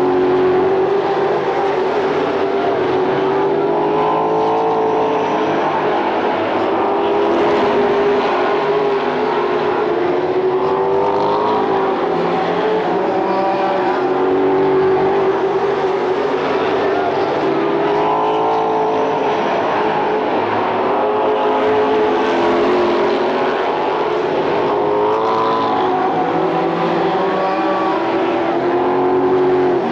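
Pack of late model stock cars racing around a short oval, their V8 engines at racing speed. Several engine notes rise and fall together as the cars go down the straights and through the turns.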